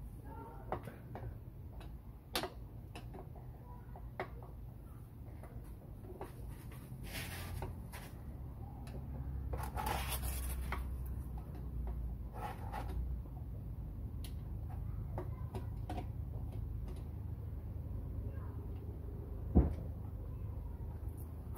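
Pliers clicking, knocking and scraping against the bottom drain screw of an outboard's lower-unit gearcase as it is worked loose to drain the gear oil, with one sharper click near the end. A low steady hum runs underneath.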